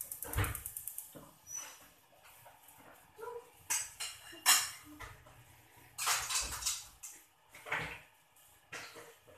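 Gas hob's igniter ticking rapidly until the burner catches about a second in, then scattered clinks and clatter of plates, bowls and a metal spatula being handled, with one sharper clatter about halfway through.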